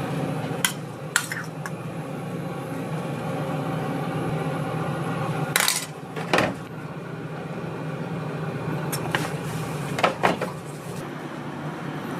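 Metal cooking utensils clinking and knocking against a pan, a handful of separate strikes, over a steady low hum.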